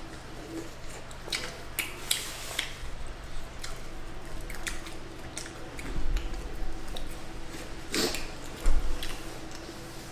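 Close-up eating sounds: chewing and wet mouth clicks from people eating chicken wings, over a steady low hum. Two low thumps, about six seconds in and near the end, the second the loudest.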